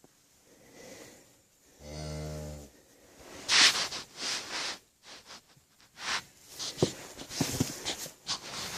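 A cow moos once, a short, low call about two seconds in. It is followed by a series of louder rustling and scuffing noises with a few sharp knocks.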